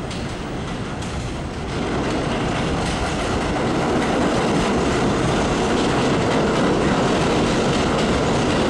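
R-46 subway train pulling into an elevated station, its wheels running steadily on the rails. The sound gets louder about two seconds in as the cars come alongside, then holds.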